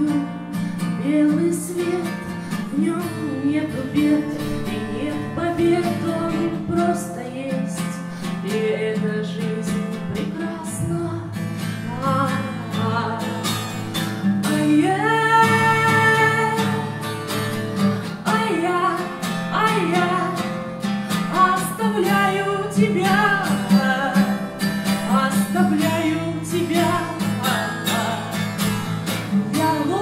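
A woman singing over her own strummed acoustic guitar; her voice comes in stronger and higher about halfway through.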